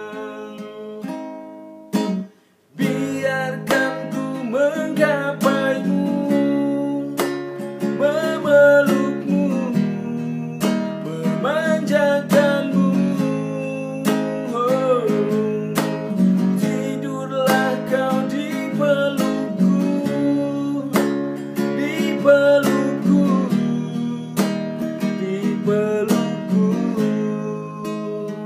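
Classical acoustic guitar strummed in a steady rhythm, with a man's voice singing along over the chords. The sound drops out briefly about two seconds in.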